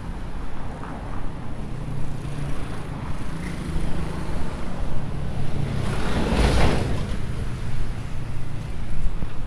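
Road traffic going by, a steady low rumble; about six seconds in one vehicle passes close, its noise swelling and then fading away.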